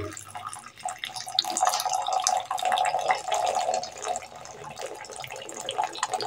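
Hot milk tea (chai) poured in a thin stream into a ceramic mug: a steady splashing trickle, strongest in the middle and easing off toward the end.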